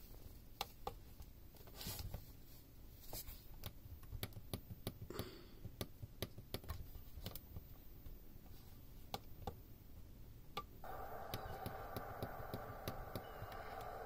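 Plastic buttons on a Sony ICF-C707 Dream Machine clock radio clicking under a finger, press after press. Nearly eleven seconds in, a steady rushing noise starts from the radio's small speaker, one of its preset nature sounds.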